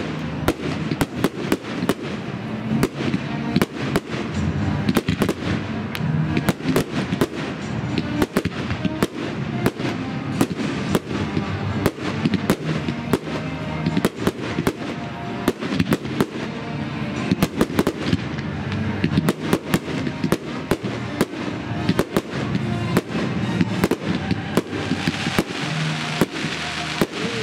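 Fireworks display finale: a continuous barrage of aerial shells bursting, several sharp bangs a second over constant crackling, with the crackle growing brighter near the end.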